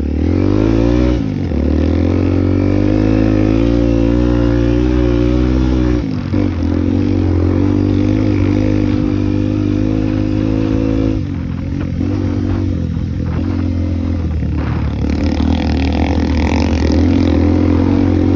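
Single-cylinder motorcycle engine under way: revs rise at the start, drop with a gear change about six seconds in, change again around eleven seconds, then run steadily.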